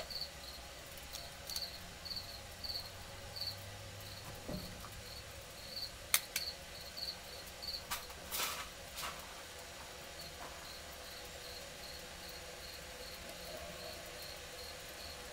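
A cricket chirping steadily, about two to three high chirps a second. A sharp click comes about six seconds in, and a brief rustle around eight seconds.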